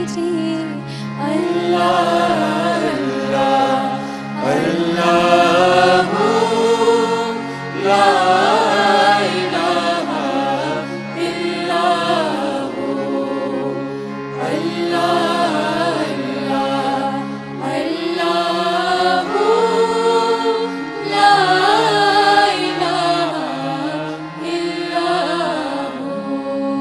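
Group of singers chanting a devotional Urdu song in chorus, phrase after phrase, over a steady harmonium drone.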